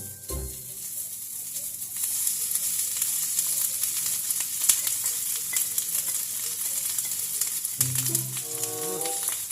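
Sinangag (garlic fried rice) sizzling in hot oil in a frying pan, with scattered clicks of stirring. The sizzle gets louder about two seconds in. Background music comes in near the end.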